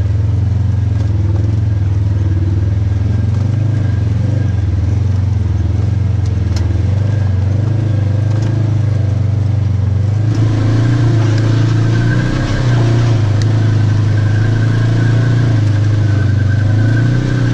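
Polaris RZR side-by-side's engine running steadily while riding, with a thin steady whistle above it, which the rider blames on the clutch. The engine note shifts about ten seconds in.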